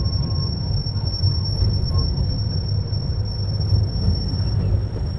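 Miniature farm-park ride-on train running: a steady low rumble from the moving train, with a thin, steady high-pitched whine over it.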